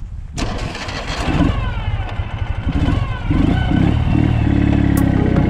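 A sidecar motorcycle's engine starts suddenly about half a second in, then runs and revs unevenly, with its pitch rising and falling.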